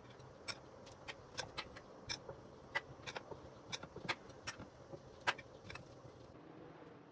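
Light clinks and clicks of kitchen utensils or dishes being handled, about a dozen irregular taps over six seconds, then stopping.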